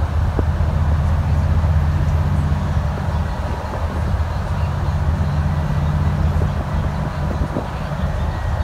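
Diesel engine of an Alexander Dennis Enviro400 MMC double-deck bus running steadily, a low drone whose note shifts a little now and then, over a haze of road noise.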